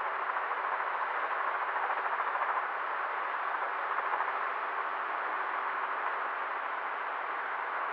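Helicopter cabin noise: a steady, even hiss with a faint underlying hum, unchanging throughout.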